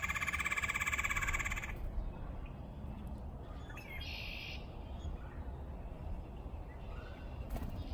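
A wild bird giving a fast rattling call that stops about two seconds in, then a shorter call about four seconds in, over a low steady outdoor rumble.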